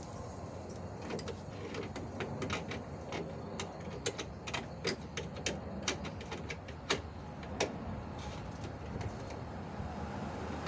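Irregular sharp clicks and knocks of hand tools on metal, a dozen or so spread over several seconds, while the car's engine cooling fan is being unbolted, over a steady low background hum.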